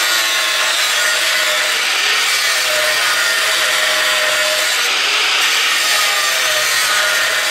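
Angle grinder with an abrasive cutting disc cutting through welded steel, a loud steady grinding hiss over a motor whine that wavers slightly in pitch as the disc bites.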